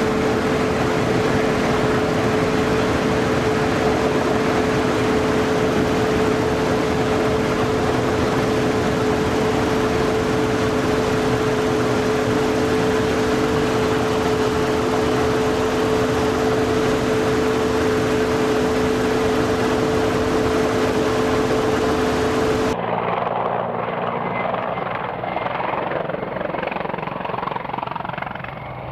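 Mil Mi-24 Hind helicopter heard from inside its front cockpit in flight: a loud, steady rush of turbine and rotor noise with a steady whine. About 23 seconds in it cuts to a helicopter heard from the ground at a distance, quieter and duller.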